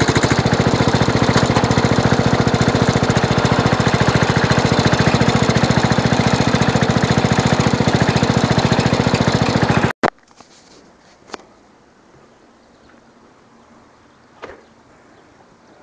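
Craftsman garden tractor engine running steadily with an even firing beat, cutting off suddenly about ten seconds in. After that only a few faint knocks are heard.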